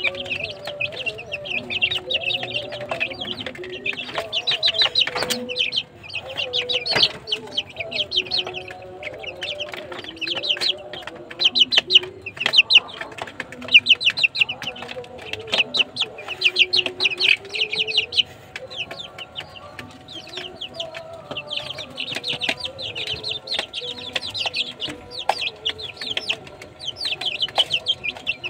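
A flock of month-old mangon chicks peeping continuously, many rapid high-pitched cheeps a second overlapping one another, with a lower wavering sound underneath.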